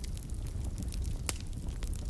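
Wood fire burning in a fireplace: a steady low rumble of flames with scattered crackles and pops, one sharp pop a little past halfway.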